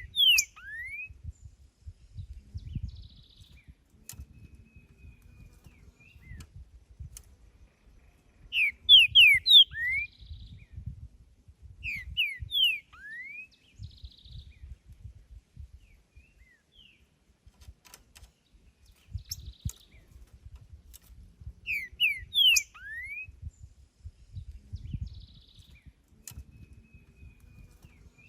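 Green-winged saltator (trinca-ferro) singing: short phrases of quick, loud whistled notes, repeated every few seconds with pauses between.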